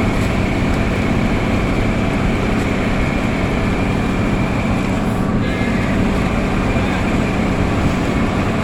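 Engine of heavy road-works machinery running steadily, a constant low drone.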